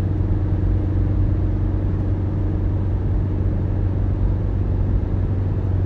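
Steady road and engine noise of a car driving, heard from inside the cabin: an even low hum with road rumble.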